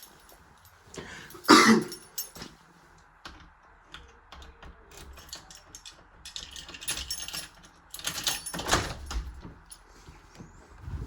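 Keys jangling and clicking, with door and lock handling noises; two louder knocks or thuds come about a second and a half in and again near the two-thirds mark.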